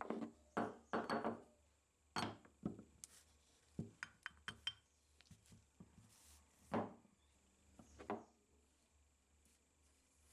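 Parts of a cast-iron charcoal iron being handled on a workbench: a string of irregular knocks and light metallic clinks as the heavy body and its handle are set down and tipped over, some with a brief ring.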